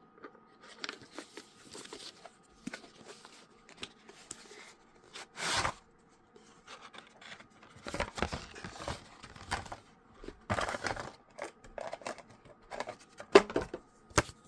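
A cardboard box and its paper packaging being opened and handled: irregular rustling, scraping and tearing, with a sharp click near the end.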